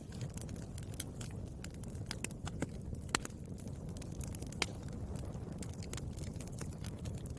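Campfire burning, with a steady low rumble of flames and constant crackling of burning wood. Two louder pops stand out, about three seconds and four and a half seconds in.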